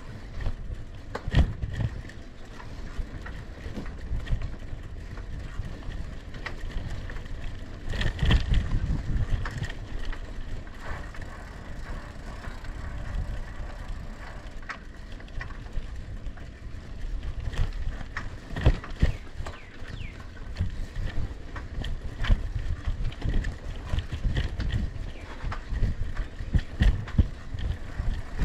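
Gearless bicycle being ridden over a rough dirt track: the frame and parts rattle and knock irregularly over a steady low rumble of the ride.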